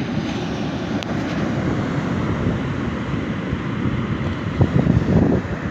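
Sea waves washing on a beach under heavy wind buffeting the microphone, with stronger gusts of buffeting near the end.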